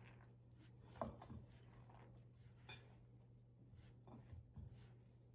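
Faint, scattered knocks and clinks of kitchen utensils against a bowl, a handful spread over a few seconds, over a steady low hum.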